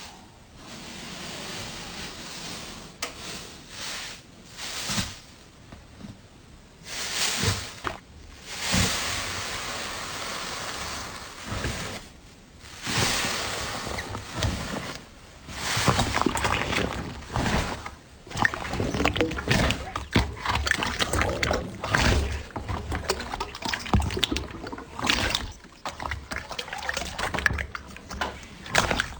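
Hands squeezing, poking and stretching slime: wet squelches and sticky crackling pops in bursts of a second or two, busier and more crackly in the second half.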